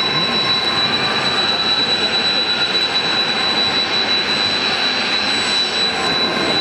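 Kawasaki T-4 jet trainers taxiing as a group, their turbofan engines running with a steady high-pitched whine over a constant rushing noise.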